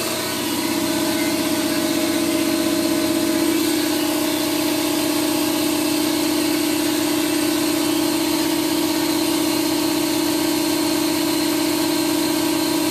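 1999 Chiron FZ18L CNC vertical mill moving its Y axis at slow, interlocked speed: a steady, smooth machine hum with a low whine that comes in about half a second in and gets stronger a few seconds later.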